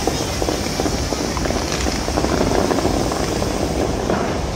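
Dubai Fountain's water jets shooting up and the spray falling back into the lake, a steady loud rushing and splashing with a dense crackle.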